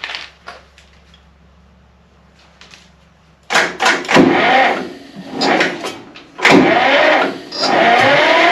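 A few sharp clicks as the starter cables are put on, then about three and a half seconds in, the single-cylinder, air-cooled diesel of a Deutz F1L 514 tractor is cranked by its electric starter. It turns over loudly in uneven surges on its first start attempt after 20 years standing.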